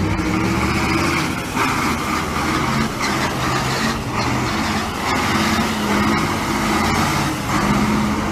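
KamAZ dump truck's V8 diesel engine running hard with a steady, loud drone while the truck slides sideways through a drift on snow and ice.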